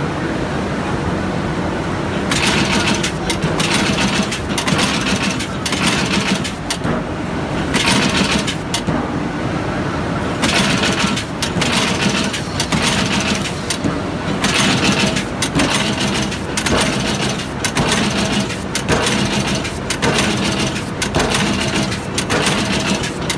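Semi-automatic carton stitcher running: its wire stitching head clacks in quick series as it drives wire staples into corrugated boxes, over the steady hum of its motors and feed rollers. The clacking starts about two seconds in and comes in bursts as each box passes.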